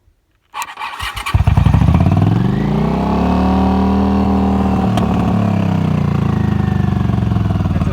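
Honda CX650 V-twin engine cranked on the starter for under a second, catching and firing up. It revs up and then settles back to a steady idle.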